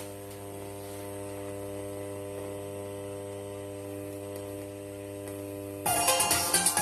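Steady electrical hum with a stack of evenly spaced overtones from a homemade active speaker and amplifier switched on and idling. Near the end, electronic music with a fast beat starts suddenly.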